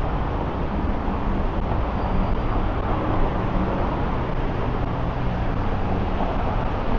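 Steady traffic noise of a busy city road, vehicles running past continuously.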